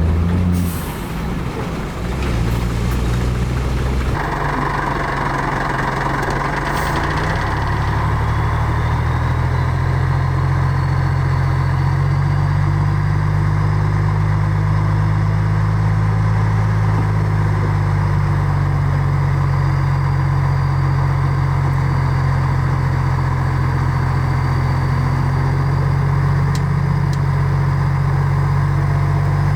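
Heavy diesel engine of earthmoving machinery running steadily, its note rising a little and holding. The sound changes abruptly about four seconds in.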